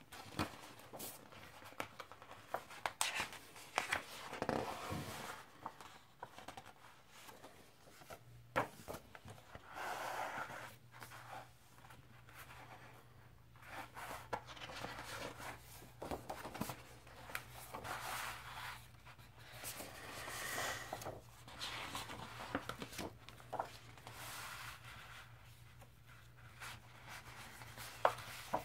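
Pages of a large printed booklet being turned and handled: paper rustling and sliding in repeated short bursts, with occasional sharp flicks.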